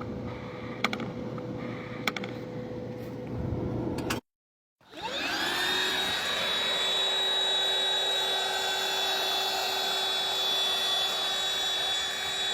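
A steady hum with a sharp click about every second and a half. After a brief break, an electric motor of dryer vent cleaning equipment spins up with a rising whine and runs steadily at high speed.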